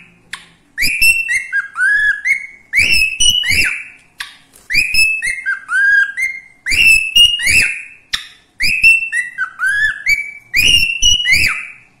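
Cockatiel whistling a tune over and over, each phrase a run of rising and falling whistled notes, repeated about every two seconds.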